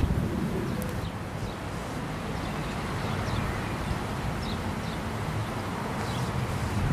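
Wind buffeting the microphone, a steady low rumble, with faint short bird chirps now and then.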